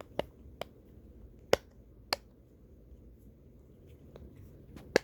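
A hand-held fidget toy being pressed or flicked: about half a dozen sharp, separate clicks at irregular intervals.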